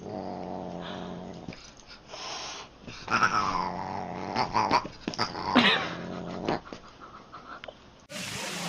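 A Siamese cat and a dog play-fighting: long low growls and a couple of sharp yowls that fall in pitch. Near the end it cuts to a steady hiss.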